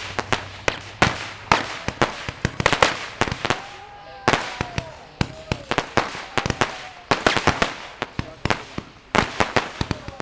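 Consumer fireworks going off: a rapid, irregular run of sharp bangs, pops and crackles, coming in clusters of several per second.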